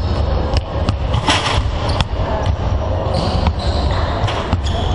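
Several basketballs bouncing on a hardwood court in a big hall, an irregular patter of knocks over a steady low hum of the hall.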